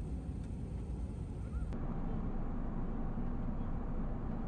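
Steady cabin noise of an Airbus A380 in cruise: a constant rush of airflow with a low engine hum. About one and a half seconds in it switches abruptly to another recording of the same noise, a little fuller and louder.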